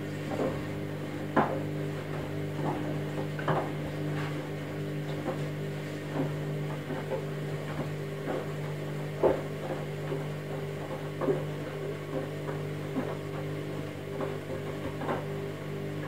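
Candy Smart Touch front-loading washing machine tumbling its load in a rapid wash: the drum motor hums steadily while water sloshes and the laundry knocks irregularly inside the drum.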